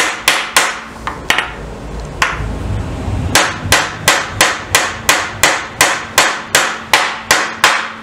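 Hammer tapping a 1/8-inch steel roll pin through a drilled hole in a steel part, about three sharp blows a second. The blows stop for about two seconds after the first second, then resume steadily.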